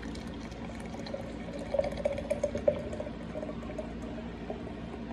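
Nitro Pepsi, a nitrogen-infused cola, poured straight down from a can into a glass, splashing steadily as it foams up, with a run of louder splashes about two seconds in.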